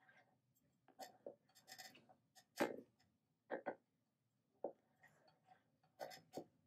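Wooden spoon stirring thick sago pudding in a stainless steel pot: faint, irregular scrapes and light knocks of the spoon against the pot, about a dozen in all.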